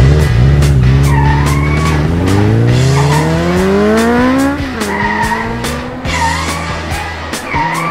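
Race car sound effects over rock music with a steady beat. An engine drones, then revs up in one long rising pitch and drops off about halfway through, followed by several short tire squeals.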